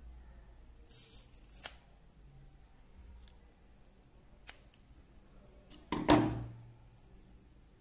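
Scissors cutting foam tape into small pieces: a few quiet snips and clicks, then one much louder clack about six seconds in.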